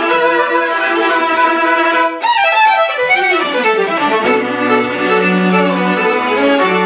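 String quartet of three upper strings and a cello playing together. The notes break off briefly about two seconds in, then a falling passage follows, and sustained low cello notes come in around the middle.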